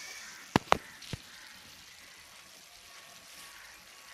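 Three sharp knocks: two loud ones close together about half a second in and a fainter one just after a second in, then faint hiss.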